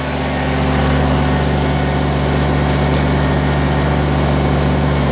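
Kubota BX23S compact tractor's three-cylinder diesel engine running steadily, getting a little louder about half a second in.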